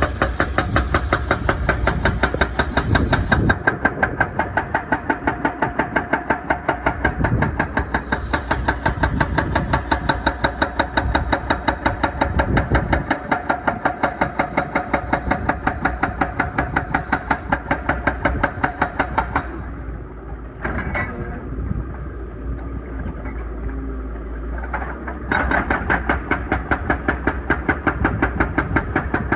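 Excavator-mounted hydraulic breaker hammering in a rapid, even run of strikes over the excavator's engine drone. The hammering stops about two-thirds of the way through, leaving the engine and a few single knocks, then starts again near the end.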